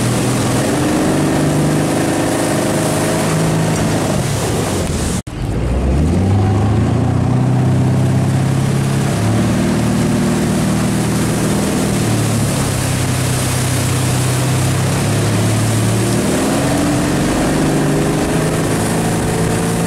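Motorboat engine running under load towing a water skier, its pitch rising and falling with the throttle, over the rush of water from the wake. The sound breaks off for a moment about five seconds in.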